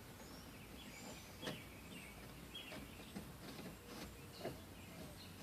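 Faint background with a few light clicks and taps as a screwdriver drives the door panel screws back in, and small birds chirping faintly.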